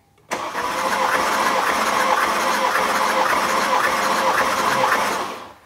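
Mercedes-AMG M157 5.5-litre biturbo V8 turned over by its starter for a compression test: a steady, rhythmic cranking with a starter whine that starts just after the beginning and stops sharply near the end.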